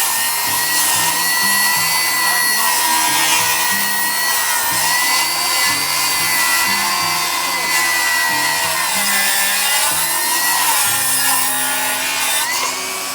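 Cordless table saw running with a steady high whine while ripping wood, the pitch sagging about nine seconds in as the blade takes load and rising again near the end.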